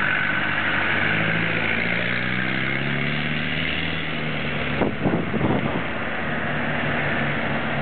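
Land Rover Defender 200Tdi's 2.5-litre four-cylinder turbodiesel engine revving as the 4x4 drifts with its wheels spinning on snow, the engine note rising and falling. A short run of rough, uneven bursts of noise comes about five seconds in.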